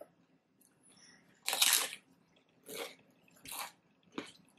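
Crunching bites of tortilla chips being chewed: one loud crunch about one and a half seconds in, then a few softer crunches and a click.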